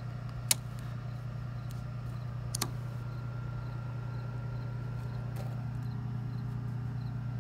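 A steady low mechanical hum, with two sharp clicks about half a second and two and a half seconds in.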